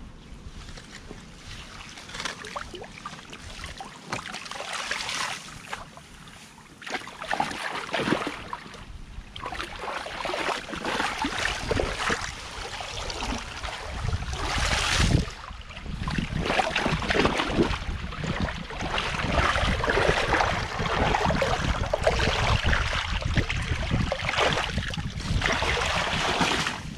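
Water sloshing and splashing as a long-handled mesh net is dragged through the shallow flowing water of a concrete irrigation ditch to scoop out leaves and mud, with a louder splash about halfway. Near the end, rubber boots wade and splash through the ditch water.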